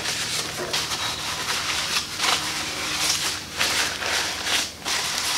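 Paper towel wiping down a metal plate and fitting: a run of uneven rubbing and rustling strokes.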